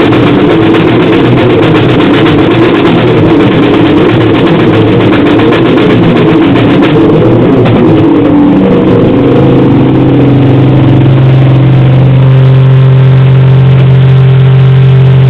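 Harsh noisecore music: a loud, dense wall of distorted noise that about nine seconds in settles into a steady low distorted drone with overtones.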